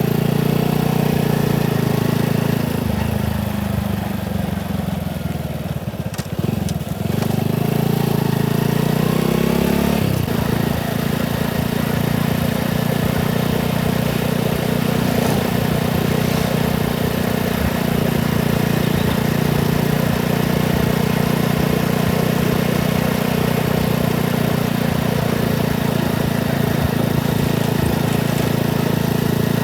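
Motorcycle engine running on the move. Its pitch drops in the first few seconds, dips and climbs again about seven seconds in as the rider eases off and pulls away, then holds a steady cruising note.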